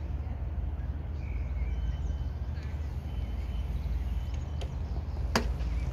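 Outdoor ambience: a steady low rumble with a few faint high chirps, and one sharp click near the end.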